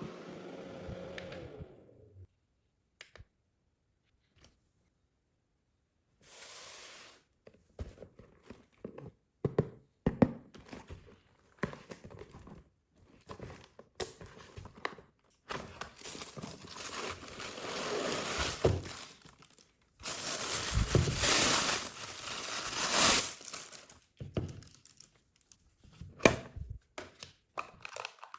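A small mini fan running, then cut off about two seconds in. Then hands handling material: crinkling and tearing with many scattered clicks and knocks, loudest in a long stretch past the middle.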